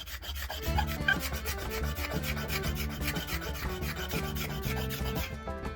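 Hand scraper scraping the old finish off a wooden hammer handle in quick repeated strokes, with background music coming in about a second in.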